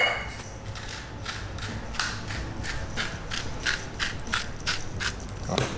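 Hand salt grinder being twisted to grind coarse pink salt, giving a ratcheting, crunching click with each twist, about three a second.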